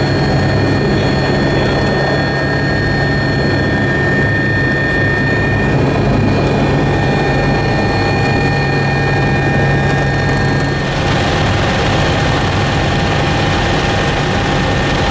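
Helicopter turbine and rotor noise heard inside the cockpit: a loud steady drone with thin high turbine whines over it. About eleven seconds in the sound shifts, with more hiss, to a helicopter flying overhead.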